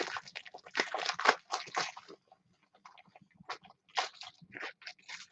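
Crinkling and crackling of plastic packaging being handled, as a pack of card top loaders is fetched and opened; busy for the first two seconds, then sparser crackles with a short flurry about four seconds in.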